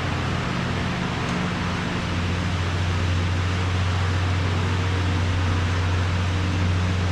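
Steady low machine hum over an even hiss, unchanging: constant background noise of a running motor or fan.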